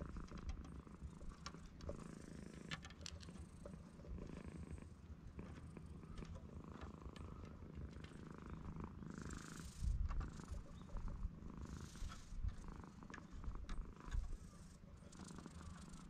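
Tabby-and-white domestic cat purring steadily at close range while being stroked, with a few brief rushes of noise and a low bump about ten seconds in.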